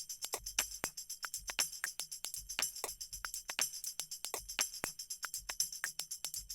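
Background music: a quick, steady tambourine-like percussion beat.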